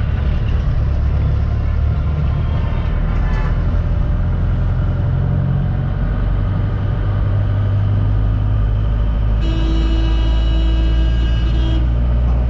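Engine and road noise inside a moving shared jeep, a loud steady low rumble. Near the end a sustained pitched tone with many overtones sounds for about two seconds.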